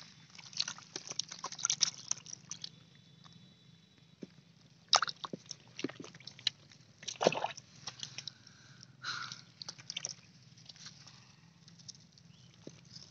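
Irregular wet slaps, splashes and squelches as hands grab a small fish in shallow muddy water.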